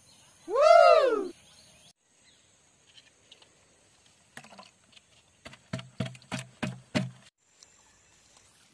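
A single loud animal call that rises and then falls in pitch, about a second in. Later comes a quick run of about seven knocks: a latex collecting cup tapped against the rim of a plastic bucket as it is emptied. A steady high insect hum runs underneath.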